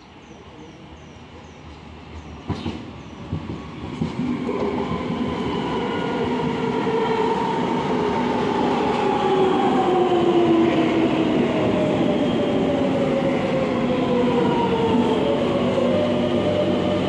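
Metro de Madrid S7000 electric train arriving and braking to a stop, growing louder as it approaches. A few knocks come between about two and four seconds in, then the electric drive's whine falls steadily in pitch as the train slows, settling into a steady hum once it stands.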